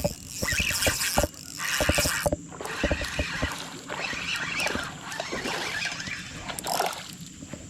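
Hooked largemouth-type bass splashing and thrashing at the water's surface for about two seconds, then irregular knocks and rattles as the fish and tackle are handled in the boat.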